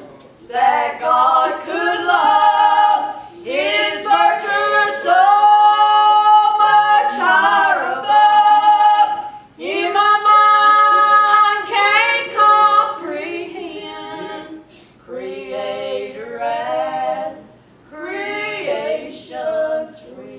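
Two women singing a gospel song together without accompaniment, in long held phrases with brief pauses between them.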